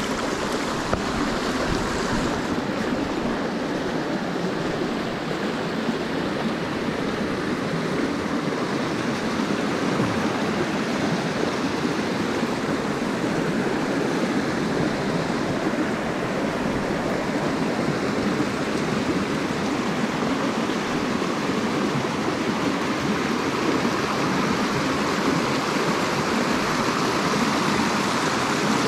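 Trout stream's water rushing steadily.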